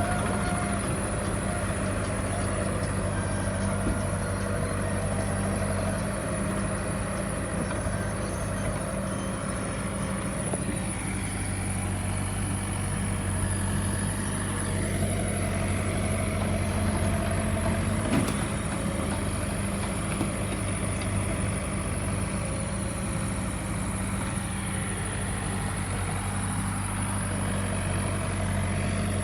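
Backhoe loader's diesel engine running steadily, a low even drone.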